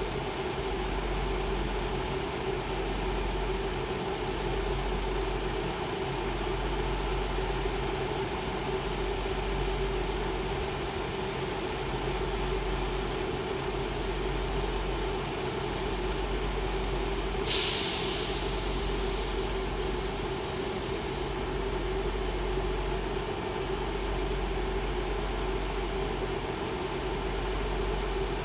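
Class 158 diesel multiple unit standing at a platform with its diesel engines idling in a steady hum. About two-thirds through, a sharp hiss of released air starts suddenly and lasts about four seconds.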